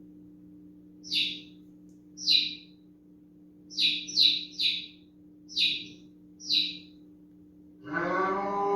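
Seven short, high bird chirps, some single and three in a quick run, over a faint steady hum. Near the end a cow starts a long moo.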